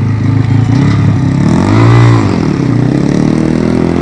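Pit bike's small single-cylinder engine revving, its pitch climbing to a peak about two seconds in and dropping back.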